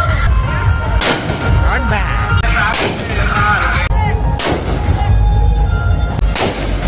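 Handheld firework tube fired repeatedly overhead: four loud bangs, about one and a half to two seconds apart.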